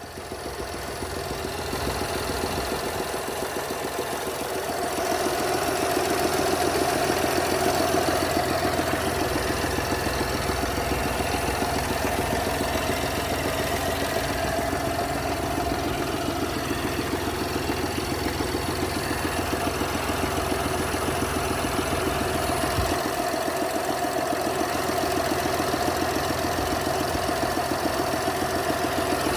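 BMW B38 three-cylinder engine of a 2021 X1 hybrid running steadily at idle with a fast, even ticking clatter, which the owner takes for an abnormal noise on a nearly new engine. It grows louder over the first few seconds, then holds steady.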